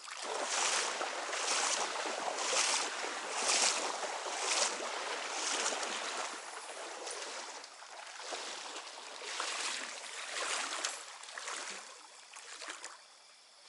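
Someone wading through a trout stream, the water splashing with each stride about once a second, over the rush of running water; the strides become irregular and fade toward the end.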